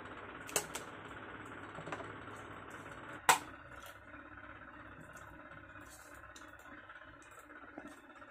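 A few light clicks, then a sharp metal snap about three seconds in as the rings of a ring-binder journal are opened, followed by faint ticks of paper being handled on the rings.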